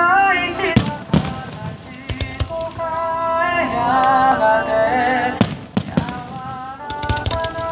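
Aerial fireworks bursting with sharp bangs: a few in the first two and a half seconds, two more past the middle, then a rapid crackling run near the end. Music with singing plays underneath.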